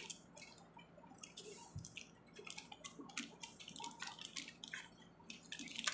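Chocolate bar's foil wrapper crinkling as hands unfold the gold outer foil and peel back the silver inner foil, giving faint, irregular crackles.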